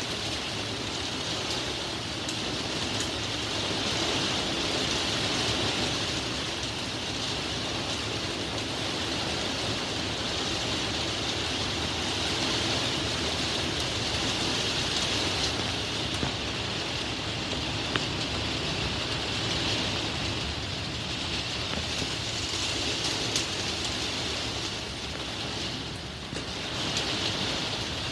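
Torrential thunderstorm rain pouring steadily, a constant hiss of heavy rainfall with a couple of sharp drop ticks.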